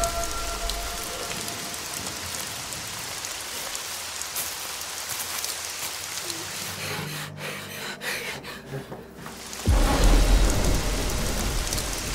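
Steady rain falling, with a sudden loud clap and rumble of thunder about ten seconds in.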